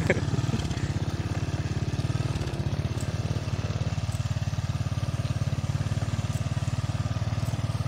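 Small motorcycle engine idling steadily, with an even, rapid putter.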